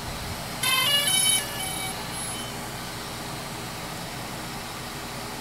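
DJI Spark drone's power-on start-up chime: a short melody of clear electronic tones about half a second in, fading out over the next second. It is the sign that the aircraft has booted on the inserted battery. A steady background hiss runs underneath.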